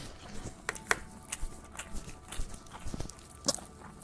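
Mouth noises of someone eating rice by hand: wet chewing and lip smacks, a string of irregular sharp clicks.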